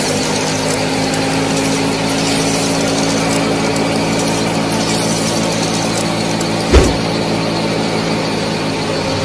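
Small motor-driven miniature thresher running steadily with a mechanical rattle, and a single low thump about seven seconds in.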